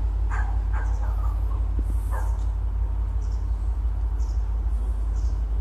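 A dog barking a few short times in the first couple of seconds, over a steady low rumble.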